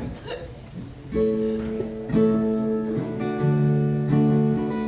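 Acoustic guitar strummed in slow, ringing chords, one strum about every second starting about a second in.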